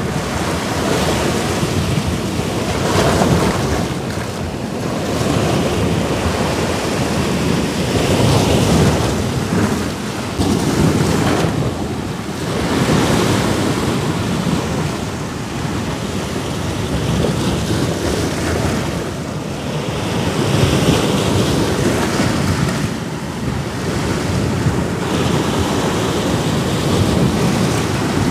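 Sea waves breaking on a rocky shore, a steady rush of surf that swells and falls back every few seconds, with wind buffeting the microphone.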